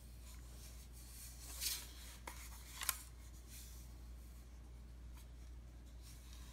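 Handling noise as a plastic Bison Airlighter fire starter is turned over by hand: two brief rubbing scrapes, about a second and a half and three seconds in, the second ending in a sharp click, with a few fainter rustles after.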